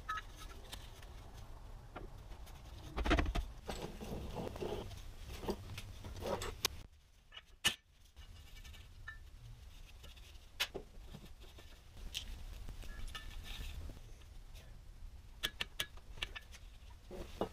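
Quiet workbench handling noises: scattered knocks and clicks of metal as an aluminium oil filter housing is handled and clamped in a bench vise, with a louder knock about three seconds in. Near the end, a cluster of sharp clicks comes as a socket wrench works on the housing's bolts.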